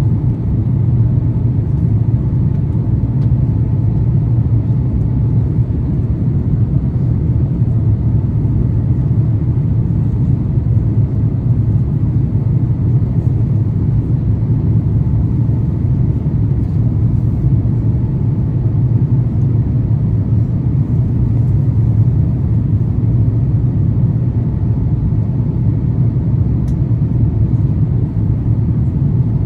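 Steady, loud cabin rumble of an Airbus A350-900 airliner in flight, the drone of its Rolls-Royce Trent XWB engines and airflow heard from inside the passenger cabin.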